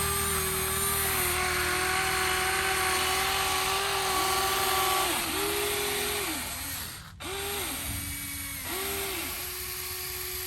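Small electric motors and gearboxes of radio-controlled construction models whining: one long steady run for about five seconds, then several short starts and stops, each rising and falling in pitch.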